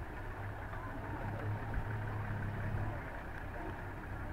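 Safari vehicle engine idling steadily nearby, a low hum that grows a little louder in the middle.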